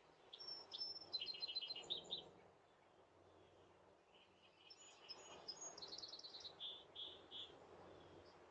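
Faint birdsong through a Ring security camera's microphone: two short songs, each a quick run of repeated chirps stepping down in pitch, one just after the start and one in the middle, over a low background hiss.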